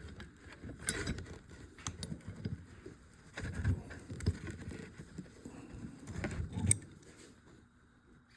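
Hand tools working a stuck part off a garden tractor's hydraulic pump: irregular metal knocks, scrapes and clicks, with the sharpest click near the end.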